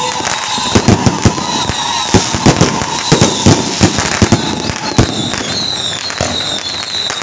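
Firecrackers going off in irregular sharp bangs, several a second, with a steady high tone that stops about five seconds in.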